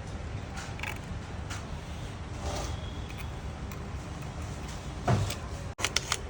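Workshop noise: a steady low machine hum with scattered short clicks and knocks, and a louder knock about five seconds in.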